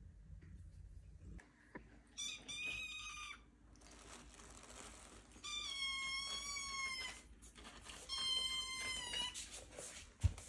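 Devon Rex kitten meowing three times, long high-pitched meows, loud: it is crying for food.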